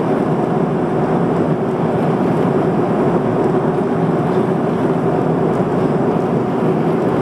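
Steady cabin noise inside an Airbus A300-600R airliner in flight: its jet engines and the air rushing past the fuselage make an even, unbroken rush.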